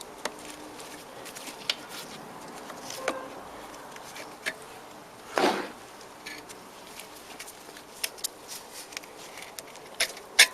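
Scattered light clicks and knocks of hands working a scooter's rear wheel and drive belt, pushing the wheel forward to free the belt from the rear pulley. There is a short vocal sound about halfway and a cluster of sharper clicks near the end.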